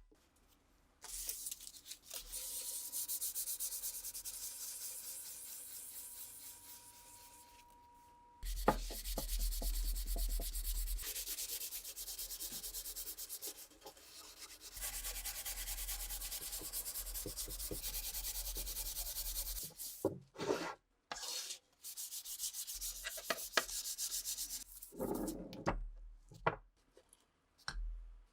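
Hand sanding on a Mosin rifle part, sandpaper rubbing in long runs of quick back-and-forth strokes, breaking into shorter bursts in the last several seconds.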